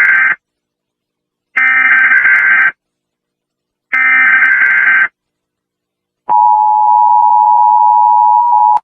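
Emergency Alert System SAME header: three buzzy, warbling data bursts of about a second each, the first already under way, with short gaps between them. About six seconds in, the steady two-tone EAS attention signal starts and sounds for about two and a half seconds before cutting off.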